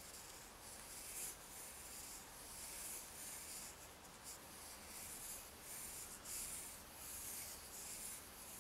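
Pencil scratching faintly across paper in a series of short, curved drawing strokes as an ellipse is sketched.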